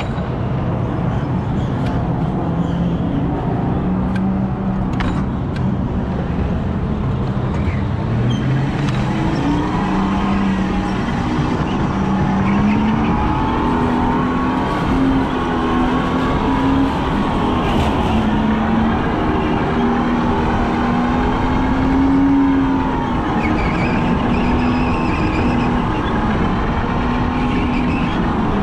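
Go-kart motor running at speed, heard from on board, its pitch rising and falling as the kart speeds up and slows through the corners over a steady rushing noise.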